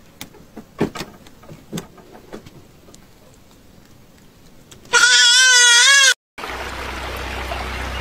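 Goat kid bleating once, a high, quavering call about a second long, some five seconds in, after a few faint taps. Shortly after the call, running water from a shallow stream takes over as a steady rush.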